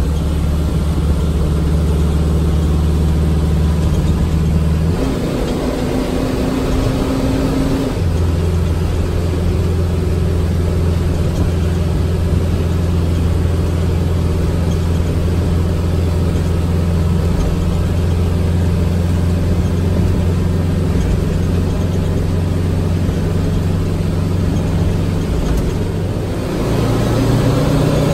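Fire engine's engine and drivetrain running as it drives along, heard from inside the cab. The engine note changes around five seconds in and again a few seconds later, holds steady, then climbs in pitch near the end as it picks up speed.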